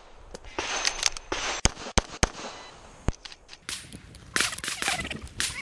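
A pistol firing a quick string of about six shots during a USPSA stage run, the last shot after a short pause, followed near the end by a stretch of rustling noise.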